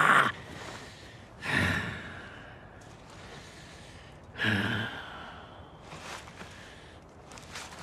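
A wounded man groaning and gasping in pain: a loud cry breaks off just after the start, then two short pained groans come about one and a half and four and a half seconds in, with quiet breathing between.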